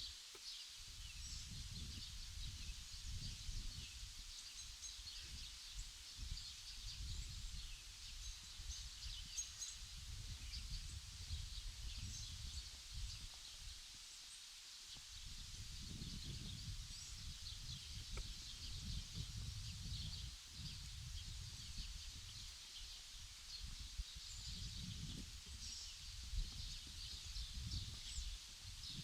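Outdoor ambience of many small birds chirping continuously, with high thin calls, over gusting wind rumbling on the microphone. The wind eases briefly at the start and about halfway through.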